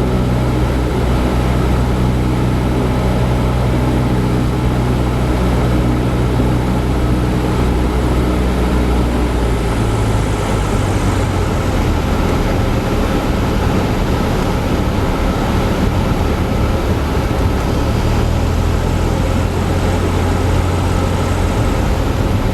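Cessna 172 Skyhawk's four-cylinder piston engine and propeller running steadily, heard from inside the cabin, the engine note shifting to a different pitch about ten seconds in.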